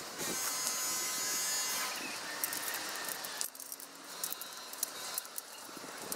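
Tent pole scraping along the fabric of a Snow Peak Land Lock tent as it is fitted, a steady scrape for about the first two seconds, then a scatter of light clicks and rattles from the pole and its fittings.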